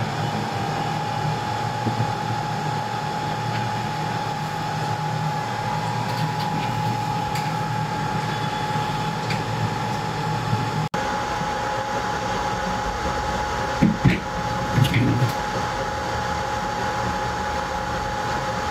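Hot-air blowers of a Zhuomao BGA rework station running steadily with a constant high whine while the station heats a chip on a TV motherboard through its soldering profile. A few soft knocks sound about 14 to 15 seconds in.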